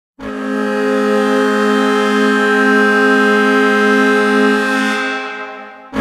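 Charlotte Checkers hockey goal horn sounding one long blast of several steady tones at once. It holds for about five seconds, then dies away over its last second.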